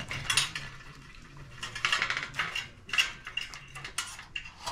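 Irregular clinking and rattling of hard objects, like metal or crockery knocked together, in several short bursts, some with a brief ringing tone.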